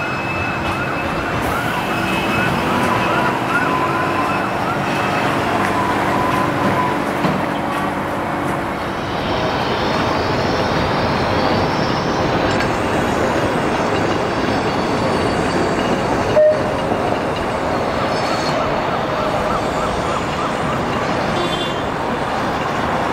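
Emergency vehicle siren sounding a rapid repeating yelp, fading out about five seconds in, over steady traffic noise. A single short sharp knock comes late on.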